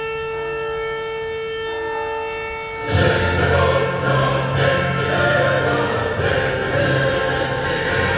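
Solemn music with a choir singing, coming in loudly about three seconds in after a few seconds of a steady held note.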